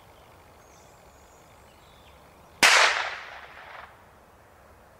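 A single shot from a .22LR rimfire rifle firing a 33-grain Remington Yellow Jacket high-velocity round. It is a sharp crack about two and a half seconds in, followed by an echo that dies away over about a second.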